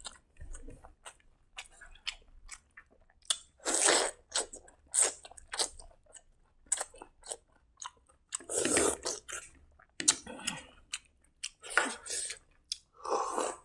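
Close-miked chewing as a man eats hand-mixed rice and side dishes: irregular wet mouth clicks, with several louder bursts of chewing.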